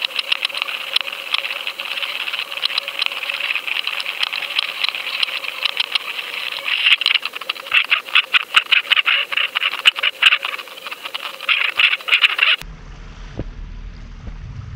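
Underwater sound of a 5.5-inch Apex salmon trolling lure being pulled through the sea: a rapid, irregular clicking rattle over a steady hiss, growing denser and louder about halfway through. It cuts off abruptly near the end, giving way to low wind and boat noise.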